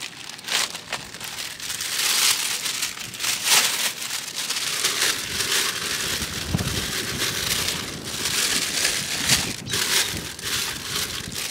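Thin plastic slow-cooker liner bag crinkling and rustling as it is unfolded by hand and spread into a crock pot, with irregular crackles throughout.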